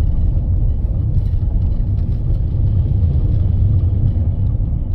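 Inside a Mercedes-Benz car driving slowly on a stony dirt track: a steady low rumble of the engine and tyres on the gravel.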